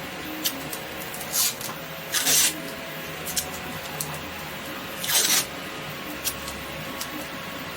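Adhesive tape handled while masking the seams of a 3D-printed plastic part: three short rasps as tape is pulled and pressed down, about a second and a half in, just past two seconds and about five seconds in, with a few light ticks between them.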